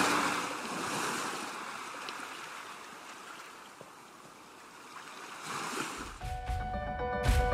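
Sea waves washing on the shore, a steady rushing that fades away and then swells again. Music with steady notes and a beat comes in about six seconds in.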